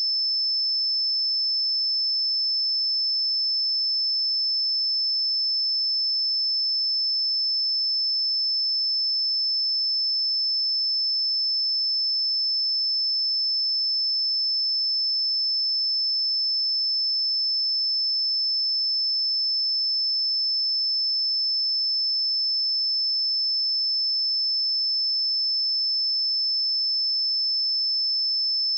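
A single pure 5266 Hz sine-wave test tone, a steady high-pitched whistle held at constant pitch and level.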